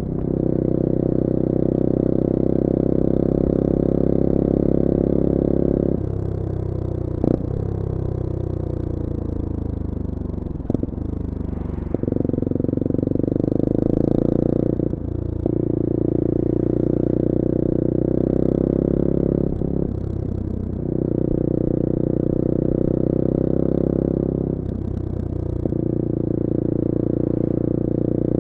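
The CF Moto-engined 250cc four-stroke of a Bullit Hero 250 motorcycle, heard while riding. It runs at a steady pitch, then falls away as the bike slows, with a couple of sharp clicks. It then pulls again at a steady note, broken by short dips that sound like gear changes.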